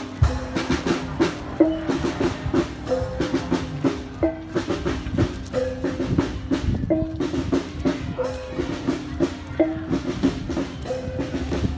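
Percussion-led music: frequent drum strikes under a short phrase of pitched notes that repeats over and over.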